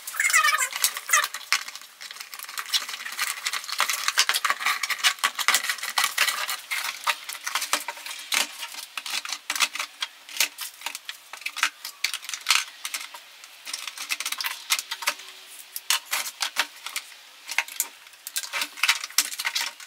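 Dense, irregular clicking and clattering of hard plastic and metal hand tools being handled and set down on a workbench.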